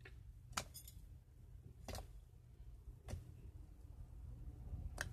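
Homemade slime being pressed and kneaded by hand, giving four sharp clicking pops over a low steady hum.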